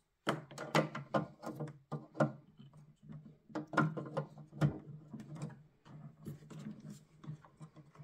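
Irregular plastic clicks, knocks and rattles as a Mercedes W211 xenon headlight housing is handled and its indicator bulb socket is twisted back in, over a low steady hum.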